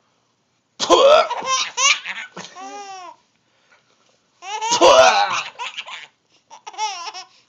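A baby laughing in three high-pitched bursts: a long one about a second in, another at about four and a half seconds, and a short one near the end.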